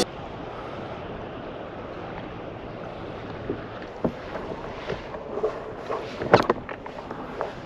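Steady wind and water noise around a sit-on-top kayak, with a scattering of sharp knocks and clicks from gear being handled in the hull, starting about three and a half seconds in; the loudest comes a little past six seconds.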